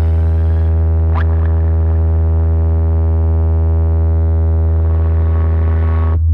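Deep humming bass drone from a DJ sound system's remix track, one loud low note held steady with its overtones, with a short rising sweep about a second in. Drum hits come in right at the end.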